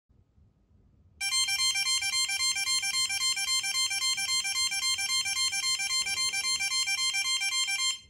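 Maker Nano's onboard piezo buzzer sounding a rapid pulsing electronic alarm, several beeps a second. It starts suddenly about a second in and cuts off just before the end. The alarm is triggered because the door has been opened, pulling the magnet away from the MC-38 magnetic contact switch, and it stops once the door is shut.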